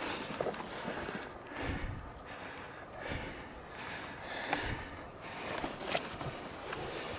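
A person breathing hard, in soft rushes about once a second, with a few faint clicks.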